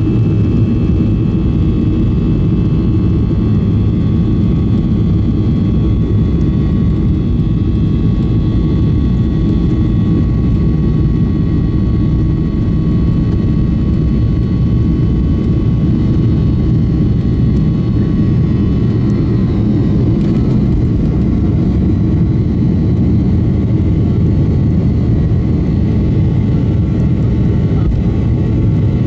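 Boeing 737-800's CFM56-7B jet engines at takeoff thrust, heard from the cabin over the wing through the takeoff roll and liftoff. A loud, steady rush with a high, steady whine on top.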